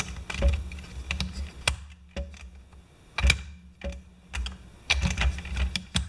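Irregular light clicks and taps of small plastic toy parts being handled and pressed together during reassembly, about a dozen scattered through the stretch, over a low steady hum.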